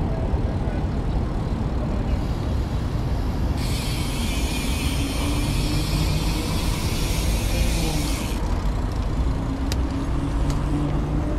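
Road traffic heard from a moving bicycle: a steady low rumble, with the hiss of a passing vehicle swelling from about four to eight seconds in, and a faint engine hum near the end.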